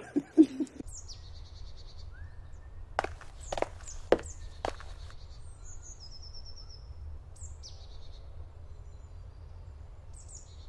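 Woodland ambience: several birds chirping and whistling over a low steady rumble, with four short sharp knocks evenly spaced about half a second apart around the middle.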